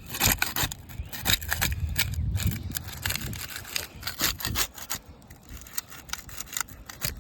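Putty knife scraping and prying under an asphalt roof shingle to break its sealed tab, with irregular rasping scrapes and crackles. The scraping is heaviest in the first three seconds, then thins to scattered scrapes and clicks.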